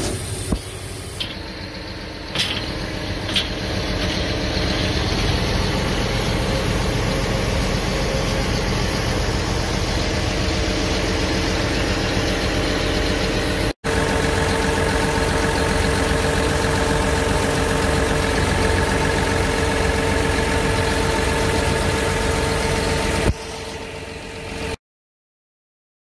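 John Deere 850K crawler dozer's diesel engine running steadily, heard close at the open engine compartment, with a steady whine over it in the second half. The sound drops out briefly about halfway and stops just before the end.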